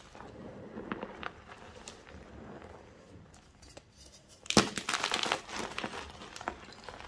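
Hands squeezing loose gym chalk powder with soft crunches. A little past halfway a whole gym chalk block is crushed between the hands: a loud, dense crunching and crumbling that trails off into lighter crackles.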